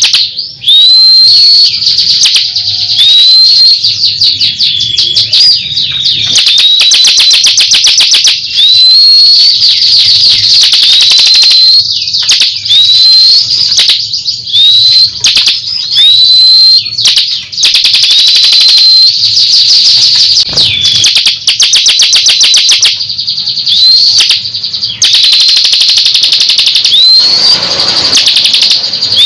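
Loud, continuous songbird song: short whistled notes that sweep upward, run together with very fast rattling trills and brief pauses between phrases.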